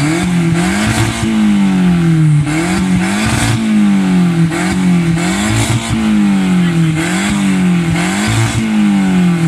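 Volkswagen Golf IV's engine revved through its exhaust again and again, about eight times, each rev climbing quickly and sinking back, loud throughout.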